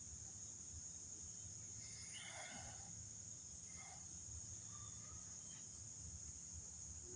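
Faint, steady high-pitched drone of an insect chorus, with a couple of faint short sounds about two and four seconds in.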